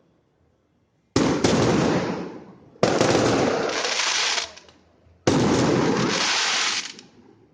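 Fireworks going off in three loud bursts, about a second, three seconds and five seconds in, each a sudden crackling blast that dies away after a second or two.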